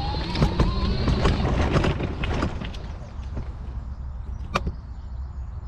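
Folding mobility scooter riding over rough ground: dense rattling and clicking over a low rumble, with a motor whine rising in pitch that cuts out about a second and a half in. After that the rattle thins and quietens, with one sharp click near the end.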